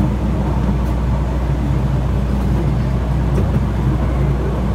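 Steady low rumble of a 12-inch gauge miniature railway train running along its track, heard from inside an open carriage.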